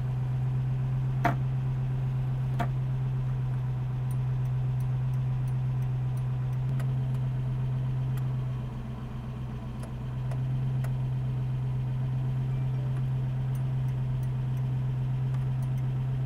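Daimler 2.5-litre V8 engine idling steadily with a low, even hum. There are two light clicks in the first few seconds.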